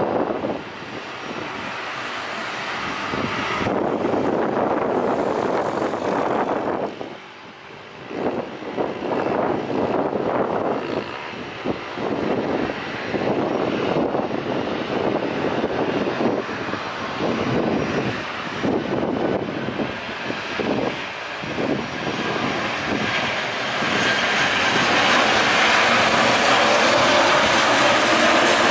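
Jet airliner engines on approach and landing: a rushing roar that swells and dips unevenly, then grows steadily louder in the last few seconds with a high whine as a Boeing 737 passes close on touchdown.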